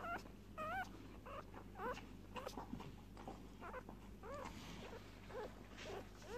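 Newborn Springer Spaniel x Kelpie crossbreed puppies squeaking and whimpering in short, high, bending calls, roughly one or two a second.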